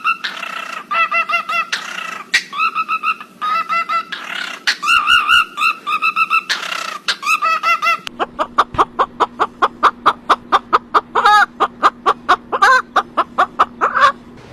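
Bird calls: short pitched calls repeated over and over for about the first half. Then comes a fast run of short calls, about five a second, over a steady low hum.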